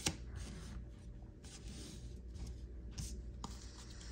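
Pokémon trading cards being slid and set down on a table: faint soft scraping and rustling with a few light taps.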